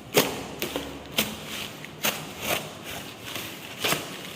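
Packaging being handled and opened, with about five sharp crackles or snaps and rustling between them.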